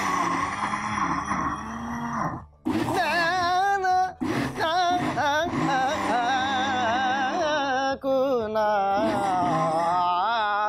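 Electric blender whirring as it purées soup, then a man sings a long wavering wordless tune over it for the rest of the time.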